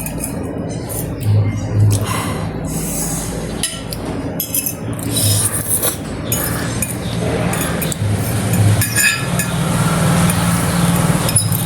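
Spoons or chopsticks clinking against bowls and dishes during a meal, a string of short light clinks and scrapes over a steady low hum.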